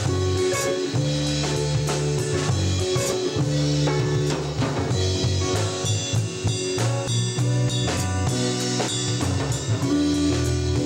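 Live band playing, the drum kit loudest: kick drum, snare and cymbal hits over sustained low notes and pitched instrument lines.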